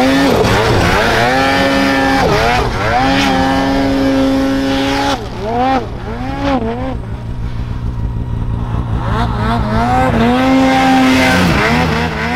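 Turbocharged two-stroke mountain snowmobile engine revving hard several times, the pitch climbing, holding high for a few seconds and then dropping off, as the sled is ridden through deep powder. In the middle there are a few short throttle blips between the long pulls.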